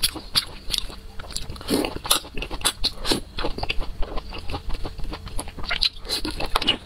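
Close-miked eating sounds: wet chewing, lip smacks and bites of soft sauce-coated food, a quick irregular run of sharp clicks and squelches.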